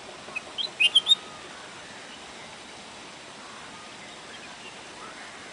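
Red-whiskered bulbul singing one short, quick phrase of high notes about half a second in, over a steady background hiss.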